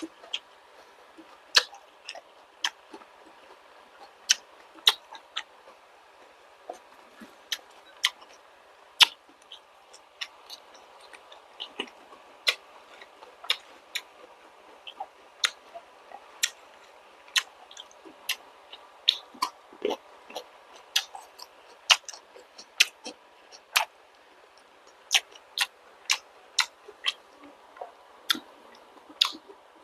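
Close-miked chewing of balut with vegetables: a steady run of sharp wet mouth clicks and smacks, irregular at about one or two a second.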